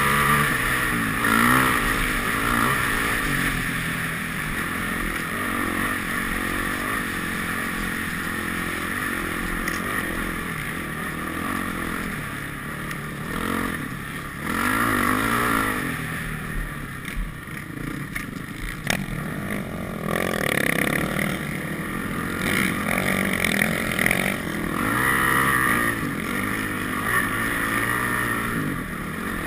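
Dirt bike engine heard from on board the bike, its pitch repeatedly rising and falling as the throttle opens and backs off, easing for a few seconds around the middle.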